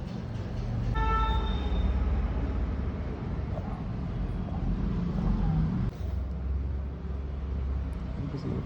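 Low steady rumble of road traffic, with a vehicle horn sounding once for about a second, about a second in.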